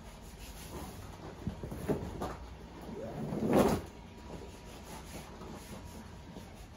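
A large shag rug being flipped over onto a plastic floor grid. A few light knocks, then a rushing swish that builds and ends in a soft flop about three and a half seconds in.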